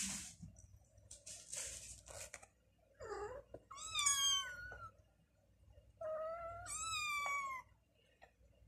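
Kittens meowing: three high-pitched calls that fall in pitch, the last a long one about six seconds in. Before them come two bursts of scratchy rustling, as claws grip the fleece cat house.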